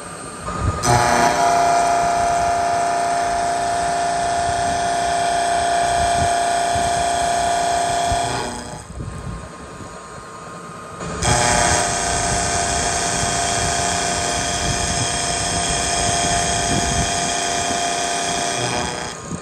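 Milling cutter taking two cuts across a steel block held in a vise. Each cut is a loud, steady, high-pitched cutting whine lasting about seven seconds, and the two are separated by a quieter gap of about three seconds while the cutter is clear of the work.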